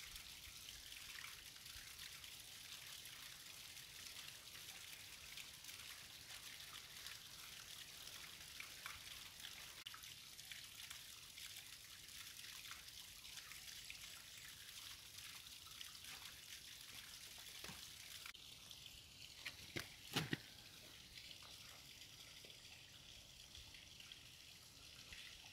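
Faint steady trickle of running water at a rocky pool. A few sharp knocks come about twenty seconds in.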